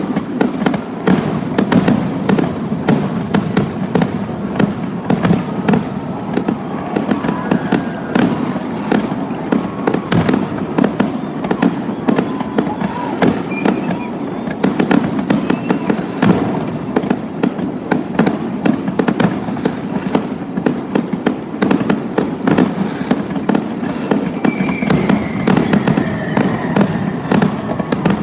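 Fireworks display: aerial shells bursting in a dense, continuous barrage of overlapping bangs, several a second.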